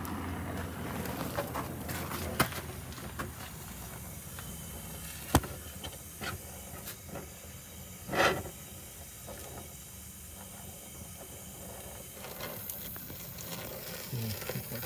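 Oxy-acetylene torch hissing steadily as it heats a rusted steering-linkage joint on the bus to free it. A few sharp clicks sound in the first six seconds, and a short louder rush comes about eight seconds in.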